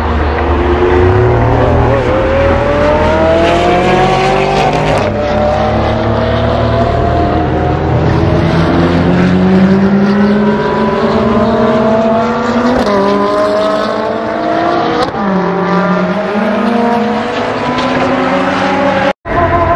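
Supercar engines, Lamborghinis among them, running hard as the cars speed past on a race track. Their pitch climbs again and again as they accelerate.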